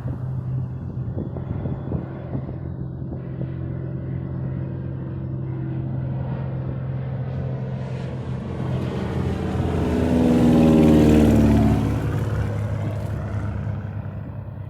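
Airplane on approach flying low overhead: its engine drone builds to its loudest about ten seconds in, drops in pitch as it passes, then fades away.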